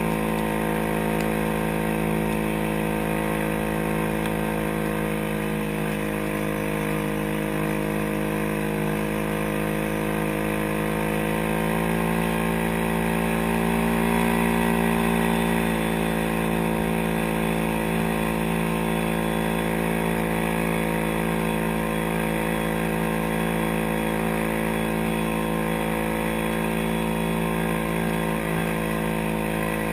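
Engine of a track-equipped ATV running steadily while riding through snow, its pitch climbing a little about halfway through and then easing back.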